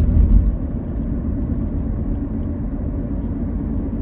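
Steady low road and engine rumble heard from inside a car's cabin while it drives along a highway.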